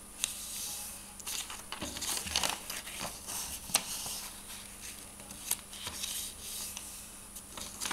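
A sheet of coloured craft paper being folded and creased by hand: irregular rustling and crinkling as the paper is bent and pressed flat, with a few sharp crackles.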